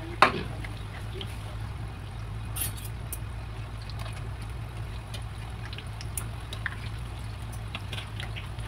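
Urad dal vadas deep-frying in hot oil, sizzling with scattered faint crackles, while a metal spoon turns them in the pan. A single sharp knock comes about a quarter second in and is the loudest sound, over a steady low hum.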